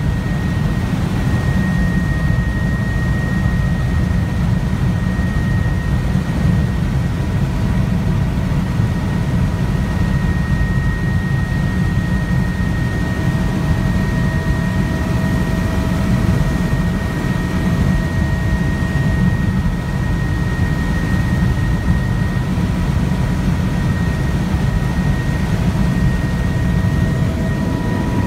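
Helicopter cabin noise in level flight: a steady, heavy low drone of the rotor and engine, with a thin high whine running over it.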